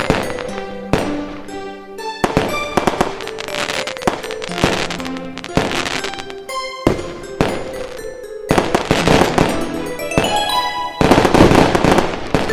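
Background music with ringing mallet-like notes, mixed with repeated firework bangs and crackle, the densest and loudest burst near the end.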